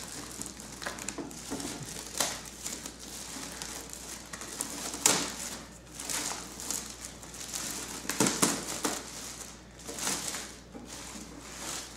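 Plastic bag being opened and handled, crinkling and rustling irregularly with several sharper crackles.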